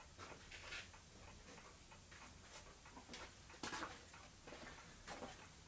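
Near silence: room tone with a few faint, irregular clicks and knocks.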